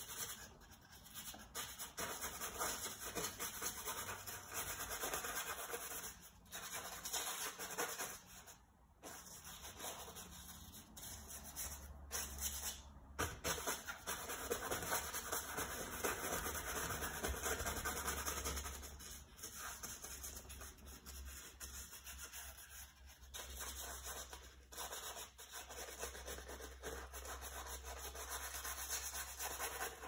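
Paintbrush loaded with oil paint stroking and scrubbing across a canvas: a rough, brushy rubbing that comes and goes with the strokes, with short pauses between passes.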